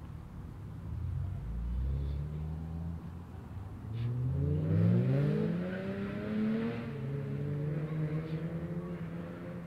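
A car engine passing by, growing louder and rising in pitch as it accelerates, then holding a steadier note.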